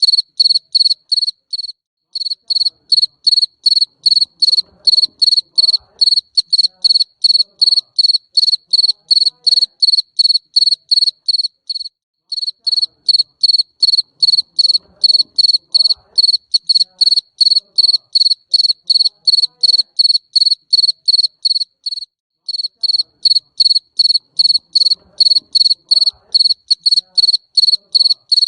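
Jangkrik mbering cricket chirping loudly and steadily, a high chirp repeated about three times a second, with a brief pause about every ten seconds.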